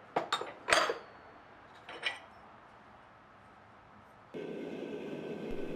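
A few sharp taps, one with a brief ring, then a steady hum that starts suddenly about four seconds in.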